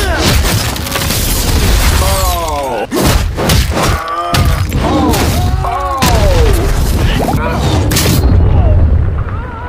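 Sound effects of a fight in an animated show: a run of heavy blows, thuds and crashes over a booming low rumble, with men grunting with effort between the hits.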